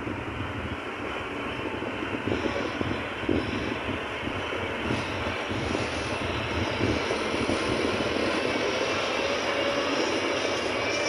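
XCMG motor grader's diesel engine running as the grader drives in over the gravel, growing louder as it comes close over the first several seconds, then holding steady as it passes.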